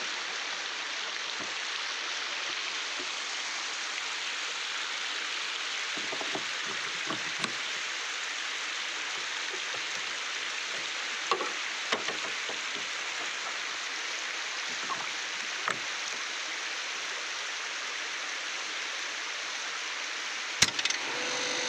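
Steady rushing of flowing river water, with a few light clicks and one sharp click near the end from handling the pump motor's electric starter box; no motor is running.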